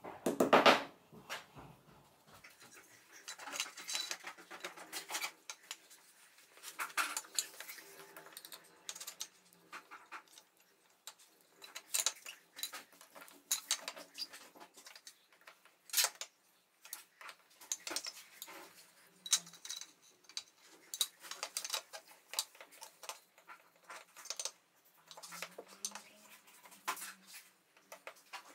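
Hand tools scraping and knocking against the brick wall of a fireplace: irregular scrapes, taps and clicks, the loudest a scrape about half a second in, then a spirit level handled against the bricks.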